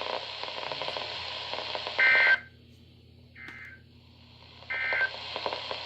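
Emergency Alert System end-of-message data bursts from a weather radio: three short buzzy digital screeches about a second and a half apart, the middle one fainter. Radio hiss comes before them and cuts out after the first burst.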